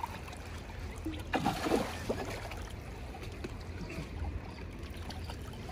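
Water splashing and trickling against the side of a boat as hands work in the water, loudest briefly about a second and a half in, over a low steady hum.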